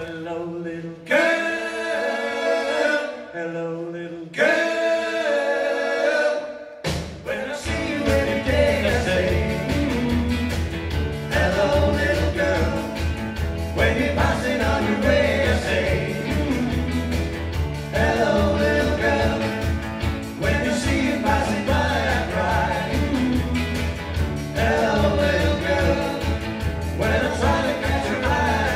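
Live 1960s beat-group music: several voices singing in harmony with little beneath them, then the full band of electric guitars, bass guitar and drums comes in with a steady beat about seven seconds in, the singing carrying on over it.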